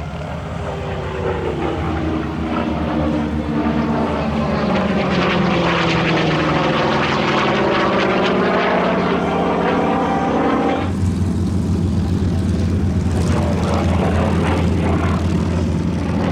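FG-1D Corsair's Pratt & Whitney R-2800 radial engine and propeller in a flyby. It grows louder, with its pitch sliding down and then back up as the aircraft passes. About eleven seconds in the sound changes abruptly to a steadier, duller low drone.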